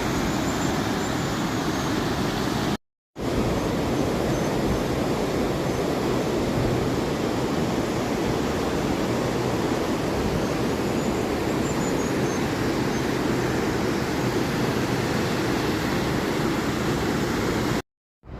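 Steady rushing of the Hinterrhein river's water through the Via Mala gorge, dropping out briefly twice at cuts. A few faint high chirps sit above it.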